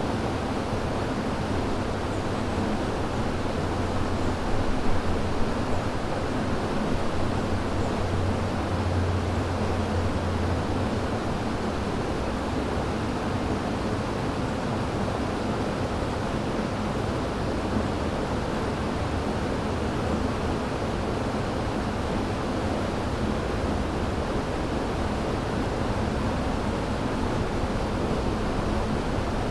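River water rushing in a steady, even flow. A low rumble swells underneath it from about four to ten seconds in.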